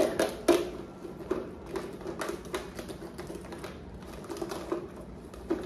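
Plastic sand toys (bucket, castle mould and tools) clicking and knocking together while being pulled out of a mesh netting bag by hand, with the netting rustling: irregular clicks, the loudest about half a second in.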